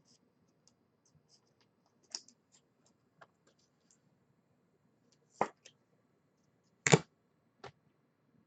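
Trading cards being handled at a table: scattered light clicks and scrapes as cards are slid and sorted, with two louder taps about a second and a half apart past the middle.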